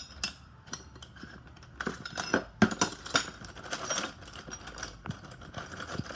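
Small steel nuts and bolts clinking against one another as they are handled: a run of sharp metallic clicks, a few at first and then a busy cluster about two seconds in.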